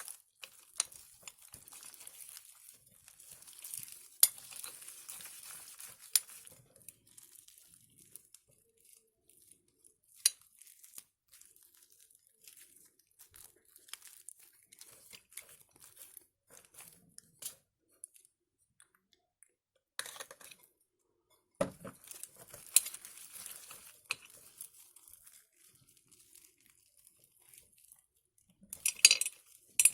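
Homemade slime being handled and mixed, with soft crackling and squelching noise and scattered sharp clicks and pops.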